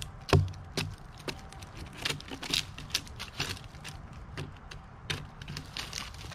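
Small hatchet chopping and chipping at a fallen pine log's lightning-scarred wood, a run of short, irregular knocks about two a second, opening up the resin-soaked fatwood.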